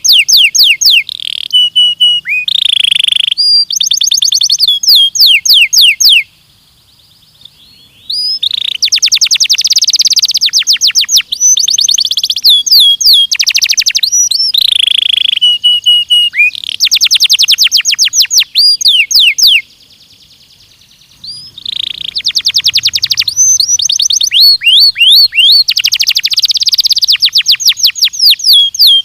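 Belgian canary singing: loud, rapid trills of repeated sweeping notes in runs of a few seconds each, with two short breaks, about six seconds in and about twenty seconds in.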